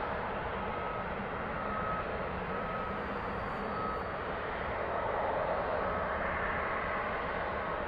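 Jet airliner engines running at taxi power: a steady rushing noise with a faint, broken high tone riding on top.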